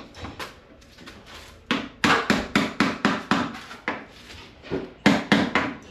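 Hammer blows knocking at a stuck part, a quick run of about seven strikes, then a pause, then four more near the end.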